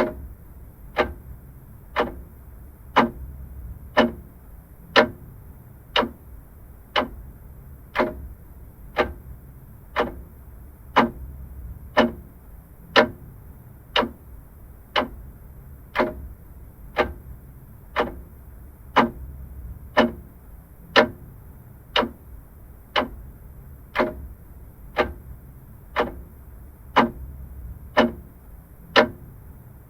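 Vintage mechanical clock ticking steadily at one tick per second, the ticks alternating slightly louder and softer in a tick-tock rhythm.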